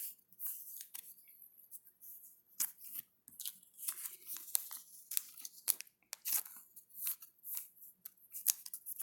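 Trading cards being handled and slid into soft plastic sleeves: scattered crisp rustles and light clicks of plastic and card stock.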